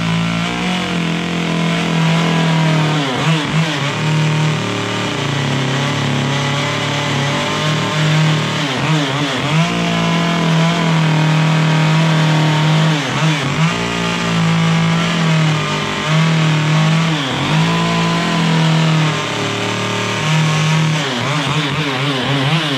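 Chainsaw running at high throttle while carving and smoothing the edges of a wooden block. The engine pitch dips and recovers again and again as the chain bites into the wood and comes free.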